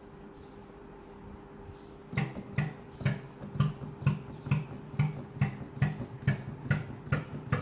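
Casio AP-470 digital piano, keys in the upper octave played one at a time, starting about two seconds in. There are about a dozen notes, a little over two a second, stepping down in pitch. Each note comes out as a thin, very high whistling tone over a low thud instead of a clean piano note: a glitch on the high notes caused by a faulty main board.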